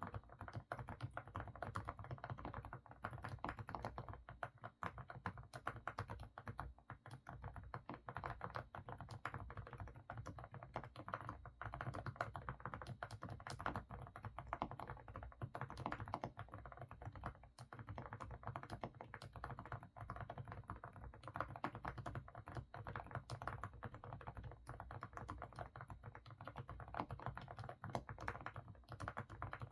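Continuous fast typing on an AK68 mechanical keyboard with semi-silent Didimdol switches. The keystrokes are full and muffled, likened to a pot of stew bubbling.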